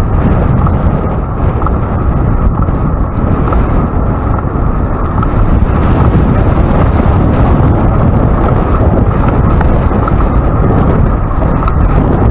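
Steady, loud wind rush buffeting the microphone of a camera on a moving bicycle: a dense low rumble with little high end.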